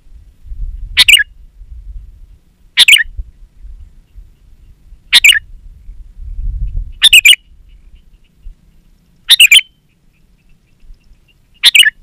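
Sooty-headed bulbul (kutilang) giving six short, harsh, very loud calls, about one every two seconds, with a low rumble between them.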